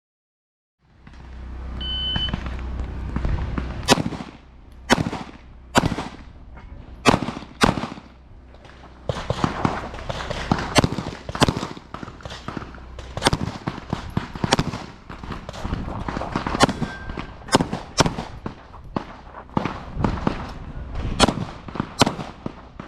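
A short electronic beep about two seconds in, the start signal, then a pistol string of fire: many shots at uneven spacing, singles and quick pairs, with movement noise between them as the shooter works through the stage.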